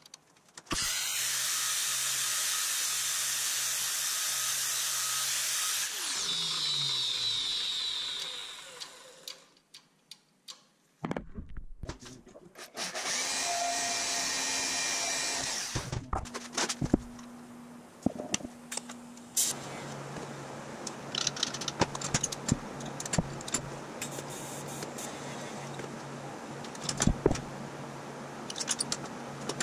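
Metal-shop power tools. A motor runs loudly for about five seconds, then winds down over a few seconds. After a short gap, a horizontal metal-cutting band saw runs. A steady hum with scattered clicks and taps fills the last ten seconds.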